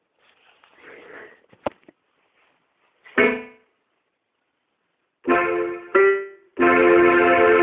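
Quiet handling rustle and a sharp click, then chords played on an instrument. There are three short chords and then a longer one held steady for about a second before it fades.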